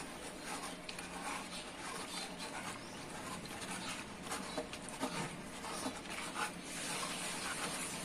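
Faint swishing and sloshing of water with scattered small clicks, from a hand stirring detergent powder in a plastic jar of water to dissolve it.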